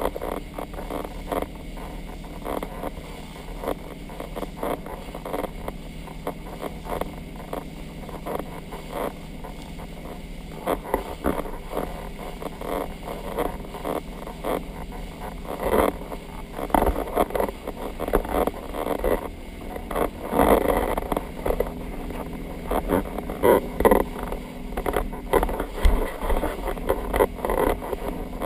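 Motorboat engine running at speed while towing an inner tube, a steady drone under the rush of wind and water past the hull. Irregular thumps and gusts grow louder and more frequent in the second half.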